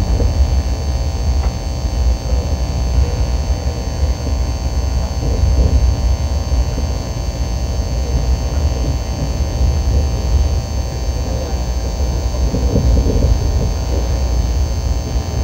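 Cabin noise of a KTX high-speed train under way: a steady, loud low rumble of the running train.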